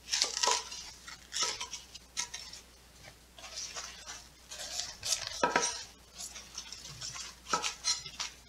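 Thick, crisp stalks of mustard greens being snapped off the head and handled on a wooden cutting board: irregular crackling snaps and rustles. The loudest come at the start and about five and a half seconds in.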